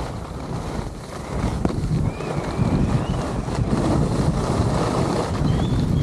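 Wind buffeting the microphone of a skier moving downhill, mixed with the hiss and scrape of skis carving on groomed snow; the rush grows louder about a second and a half in as speed builds.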